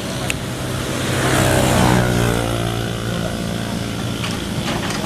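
A tracked excavator's diesel engine running steadily. It rises in pitch and loudness about a second in, peaks around two seconds, then eases back, as the engine takes the load of the hydraulics working. A few short knocks are heard near the start and near the end.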